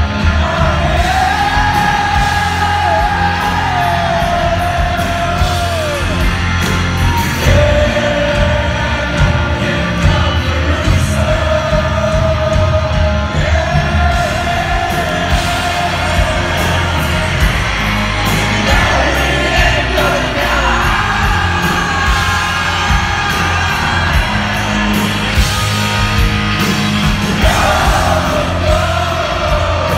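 Live rock band playing at full volume: heavy drums and bass under distorted guitars, with a long, wavering melody line held and bent over them for several seconds at a time. Heard from within the crowd in a large hall.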